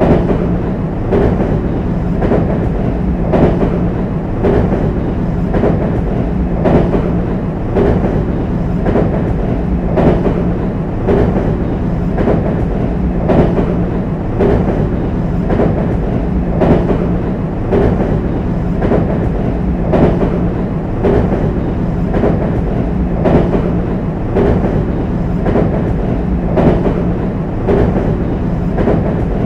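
JR West 225 series train wheels clacking over the rail joints on a steel railway bridge: regular clacks about once a second over a steady rumble and hum.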